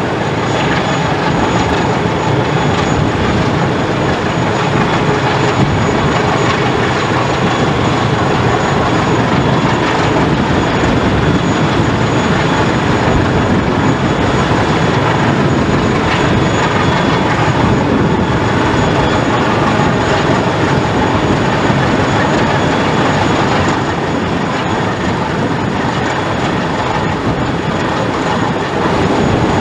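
Diesel engine of a passing Rhine inland cargo ship running steadily under way, a loud, even, deep-toned rumble.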